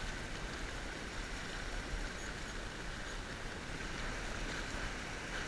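Steady rushing outdoor noise of wind buffeting the microphone and the sea, with a fluctuating low rumble and no distinct events.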